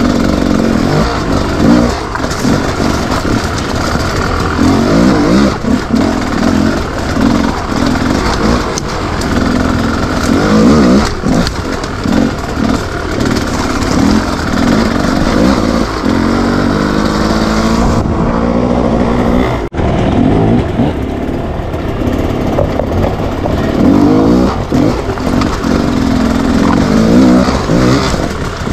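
Enduro motorcycle engine running under load and revving up and down over and over, its pitch rising and falling in quick surges. There is a momentary break about twenty seconds in.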